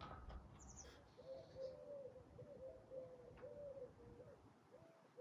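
A pigeon cooing faintly, a run of soft low coos repeated one after another with a short break before the last one.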